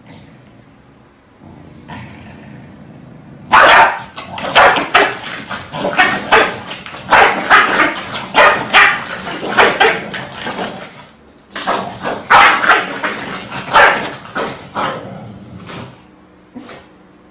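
Pembroke Welsh corgis barking at each other in quick, loud runs. The barking starts a few seconds in, breaks off briefly about halfway, picks up again, and trails off into a few last barks near the end.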